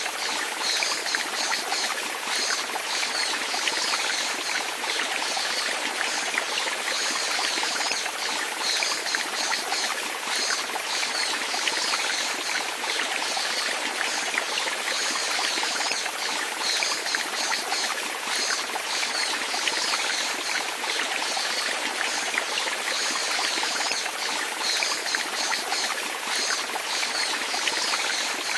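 Running water trickling and splashing steadily, a bright, even babble with many small quick splashes on top.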